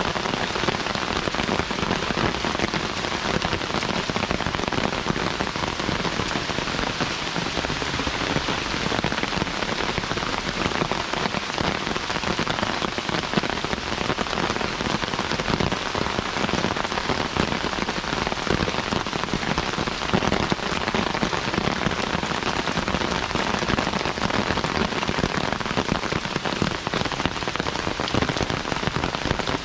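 Heavy rain falling steadily, a dense patter of countless drop impacts without a break.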